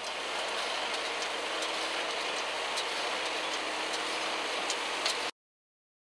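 1956 Ferguson 40 tractor's four-cylinder engine running under load as it drives a 1954 Ferguson square baler through the PTO while it picks up hay, a steady mechanical clatter with light regular ticking. The sound stops abruptly about five seconds in.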